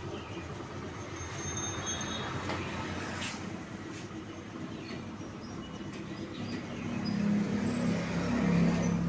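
Street traffic noise with a steady rumble. A motor vehicle's engine hum grows louder over the last two or three seconds as it comes near.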